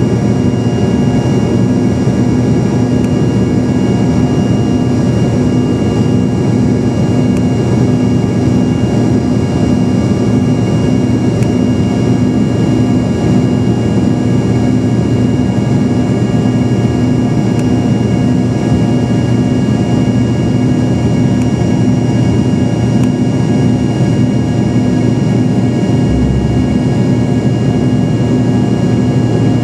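Cabin noise of an Embraer 145 regional jet in its climb after takeoff: the rear-mounted Rolls-Royce AE 3007 turbofans running steadily at climb power, several steady whining tones over a dense hum and rushing airflow. A brief low rumble about 26 seconds in.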